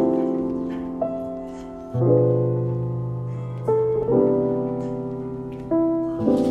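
Background piano music: slow, soft chords struck about every second or two, each left to ring and fade.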